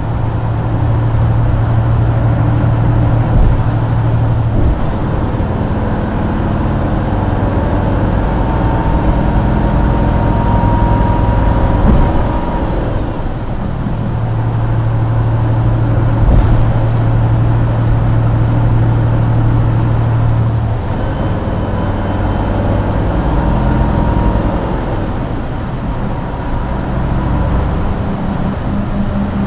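Isuzu Erga Hybrid city bus heard from inside the cabin while driving: the diesel-hybrid drivetrain drones steadily over road noise, its pitch stepping up and down several times as it accelerates and eases off.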